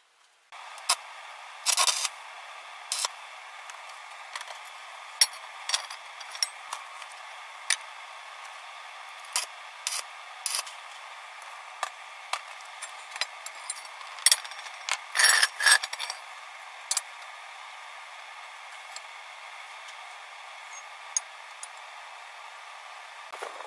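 Metal pipes clinking and clattering as they are handled, set down and knocked against a steel block: scattered sharp knocks, with a quick cluster of them about fifteen seconds in. A steady hiss runs underneath.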